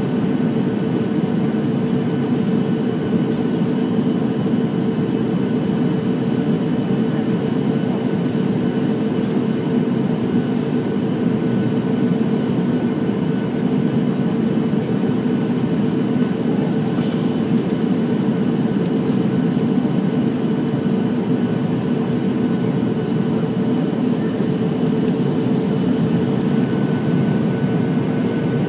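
Steady jet engine and airflow noise inside an airliner's cabin on approach to land, with a steady tone running through it. A brief click about 17 seconds in.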